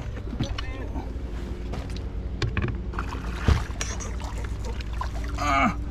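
Handling noise in a fishing raft: scattered knocks and clicks, one louder thump about three and a half seconds in, over a steady low rumble. A short voice sounds near the end.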